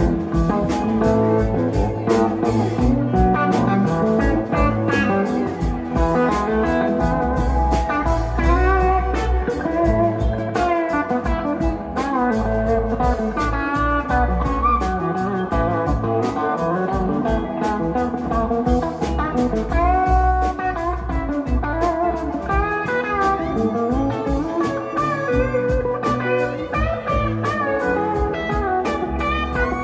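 Live rock band playing an instrumental passage: an electric guitar lead with bending notes over drums, bass and keyboards. It is heard from the side of the stage, mostly through the stage monitors with a little of the PA.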